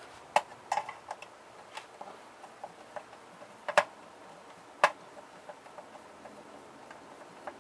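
Irregular sharp clicks and taps of a screwdriver and other hand tools against the plastic and metal parts of a small ribbon printer being taken apart. About seven clear clicks, the loudest a little before four seconds and just before five seconds in.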